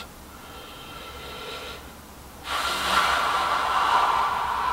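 Dry-wipe marker drawing lines on a whiteboard: a faint stroke first, then from about two and a half seconds in a longer, louder squeaky scrape of the marker tip.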